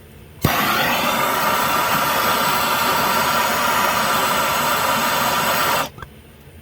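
Handheld propane torch lit with a sharp pop, its flame burning steadily with a loud rushing noise for about five seconds, then shut off. The torch is reheating a battery cable terminal so the solder will melt into it.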